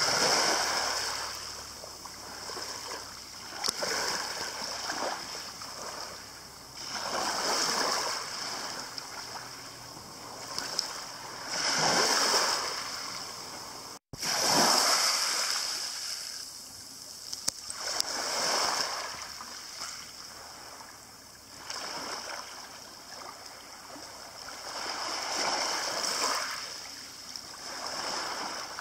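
Small waves lapping on a pebble beach: a hissing wash swells and fades every few seconds as each wavelet runs up the shingle and drains back. The sound cuts out for an instant about halfway.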